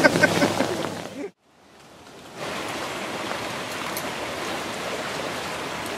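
Steady hiss of rain falling in a bamboo forest. It fades in after a brief drop-out about a second in, then holds even.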